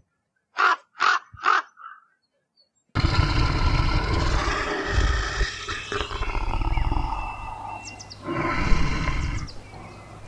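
Three short, harsh bird calls about half a second apart, then an abrupt change to a large animal's loud, rough calls with a deep rumble, which fade and come back strongly near the end.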